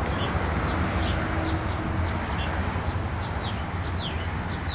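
Small birds chirping: short, high, downward-sliding chirps that come more often toward the end, over a steady low hum.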